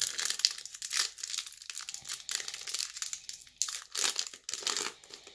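Foil Pokémon booster pack wrapper crinkling in the hands as it is torn open, in irregular bursts of crackling.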